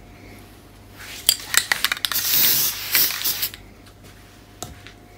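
Aerosol can of temporary spray-baste fabric adhesive: a few sharp metallic clicks and rattles, then a hiss of spraying for about a second and a half as the adhesive goes onto the quilt layers.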